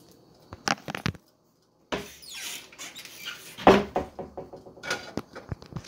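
Handling noise of a phone being moved about in a kitchen: scattered clicks, knocks and rustling, the loudest knock a little before four seconds in. About a second in the sound drops out briefly where the recording cuts.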